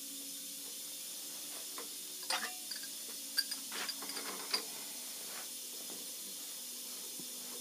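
A few light clicks and taps of metal parts being handled at a milling machine's vise, over a steady low hiss and faint hum.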